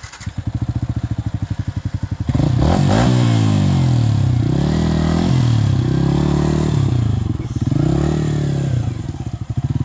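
Yamaha MT-15's single-cylinder engine catches and idles, then from about two seconds in is revved up and down repeatedly, about once a second, with its rear wheel churning in wet mud.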